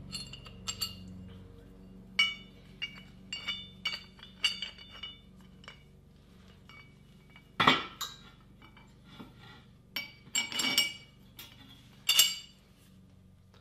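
Irregular light metallic clinks and clatter of the tube bender's aluminium shackle and bolt being handled and fitted together, with a few louder knocks near the eight-, eleven- and twelve-second marks.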